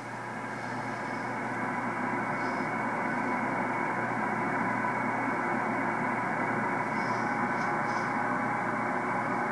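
Upper-sideband receiver hiss from an RTL-2832U software-defined radio tuned to the 10-metre amateur band, with no clear voice in it. The audio is cut off above about 2.5 kHz, as in SSB reception. It swells over the first two seconds or so and then holds steady.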